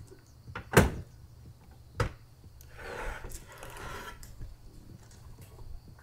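Aluminium storage box being handled off a car roof rack: a heavy knock about a second in, a second sharp knock at about two seconds, then a second or so of softer rustling handling noise.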